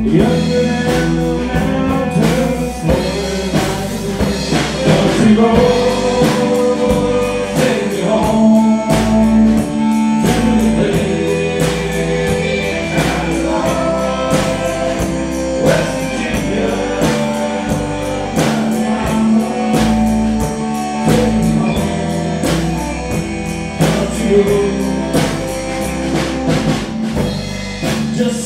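Live country band playing a song: a man singing lead over electric and acoustic guitars, bass and a drum kit keeping a steady beat.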